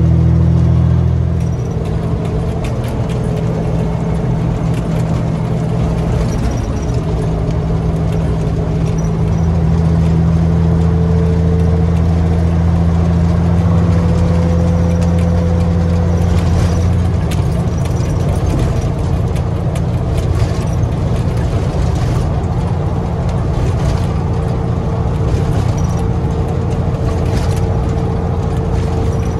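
Semi truck's Caterpillar 3406B diesel engine running under way, heard inside the cab as a steady low drone with road noise; the engine note shifts a few times, and light cab rattles click now and then.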